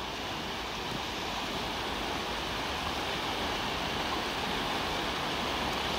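Shallow river rushing over stones and small rapids: a steady rush of running water that grows slightly louder.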